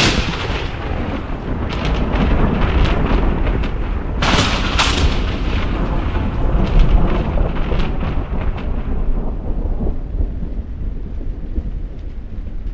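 Thunder: a sudden sharp clap at the start, another crack about four seconds in, and continuous deep rumbling that thins out near the end.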